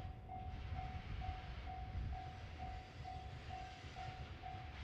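Railway level-crossing alarm ringing, an evenly repeated electronic ding about twice a second, over the low rumble of a hopper freight train rolling slowly up to the crossing.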